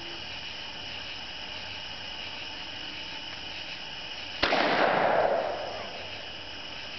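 A .410 shotgun firing a Dragon's Breath incendiary shell: one sharp report about four and a half seconds in, then a rushing whoosh from the burning plume that fades over about a second and a half. Crickets chirp steadily behind it.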